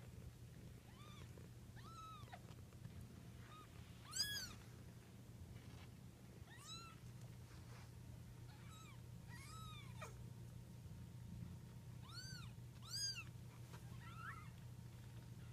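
Kittens meowing again and again with short, high, arching calls, the loudest about four seconds in and again near thirteen seconds, over a steady low hum.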